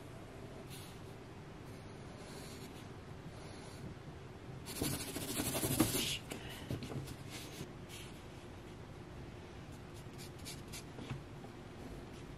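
A pen scratching on the paper of a spiral notepad as someone sketches: short strokes, with a louder scratchy burst of rapid strokes about five seconds in.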